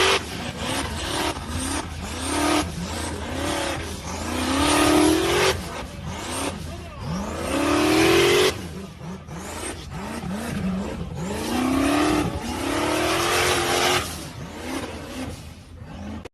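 Off-road 4x4's engine revving hard over and over, its pitch climbing and dropping with each burst of throttle, over a loud rushing noise.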